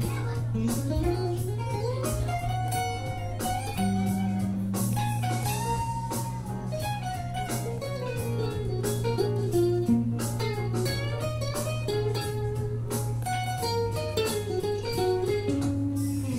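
Stratocaster-style electric guitar playing a single-note lead solo with slides and bends, over a backing track with a steady bass line and drums.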